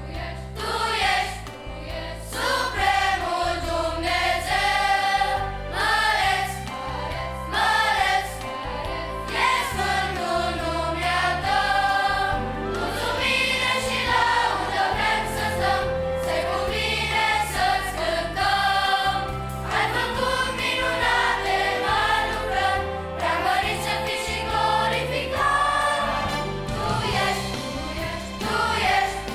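Large children's choir singing a Romanian hymn in chorus, with instrumental accompaniment underneath.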